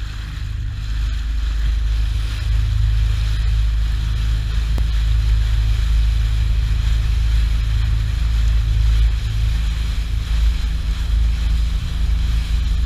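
Outboard motor of a RIB tender boat running steadily under way, with wind buffeting the microphone and water rushing past the hull. It gets a little louder over the first two seconds.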